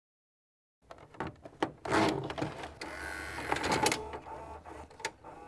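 Mechanical clicks and clunks from a tape player's transport with a short motor whir, starting about a second in, as its buttons are pressed and a tape is engaged.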